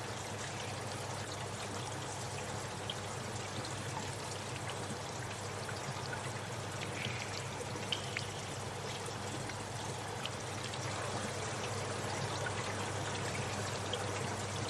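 Steady trickling, flowing water with a low steady hum beneath it and a few faint drip-like ticks, one a little louder about eight seconds in.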